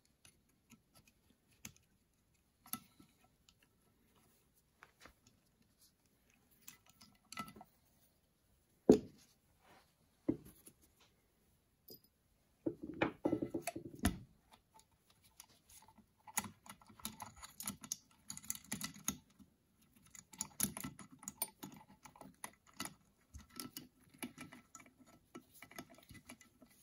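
Light, scattered clicks and taps of small metal carburetor parts and hand tools being worked on a bench during disassembly. A single sharp click comes about a third of the way in, a brief denser clatter follows about halfway, and the ticking grows more frequent after that.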